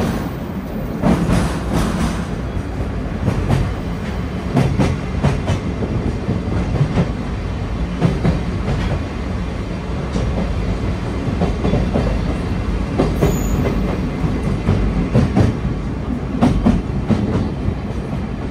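Sagano Romantic Train rolling along the track, heard from its open-sided carriage: a steady low rumble of wheels on rail with frequent, irregular clacks from the rail joints.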